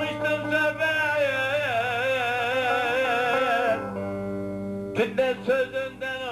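Turkish folk song (türkü): a man sings one long, wavering, ornamented note over a strummed bağlama and a cümbüş. His voice stops a little under four seconds in, leaving the strings, which pick up with brisk strumming about a second later.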